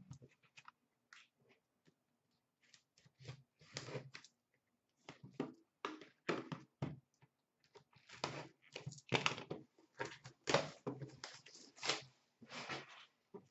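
A sealed hockey card box being slit open with a box cutter and handled: irregular rustling and scraping of its wrapper and cardboard, with light knocks, busier in the second half.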